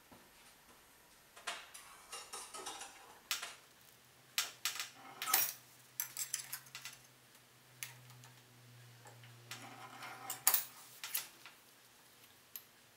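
Thin sheet steel clinking and clattering as it is handled and cut on a hand-lever bench shear, in several short bursts of sharp metallic clicks.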